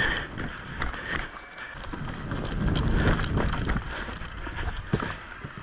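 Footsteps and gear rustling as a player moves across overgrown ground, with wind on the microphone. A few sharp clicks stand out, the loudest about five seconds in.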